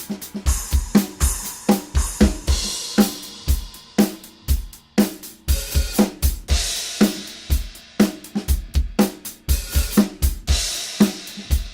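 Drum kit groove on Centent XTT cymbals: steady kick and snare beat under hi-hat or ride, with a crash cymbal accent washing out about every four seconds.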